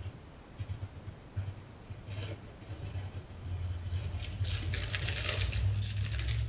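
Plastic wrapping rustling and crinkling as a wrapped piece is handled and lifted out of a polystyrene foam packing tray. The rustling is sparse at first and grows denser from about four seconds in, over a steady low hum.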